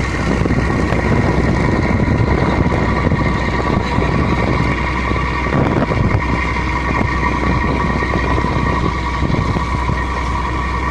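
Steady engine drone with a low hum and a constant whine, heard aboard a river vehicle ferry.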